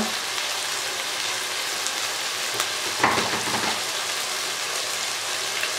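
Chicken pieces frying in oil in an open pan, sizzling steadily, with one short knock about three seconds in.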